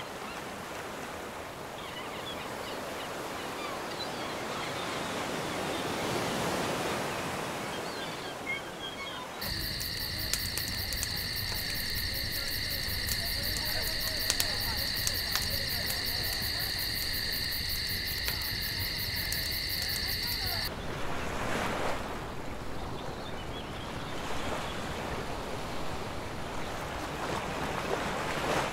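Sea waves washing in, in slow surges. About nine seconds in, a steady high buzz with several held tones starts abruptly. It lasts about eleven seconds, cuts off suddenly, and the waves return.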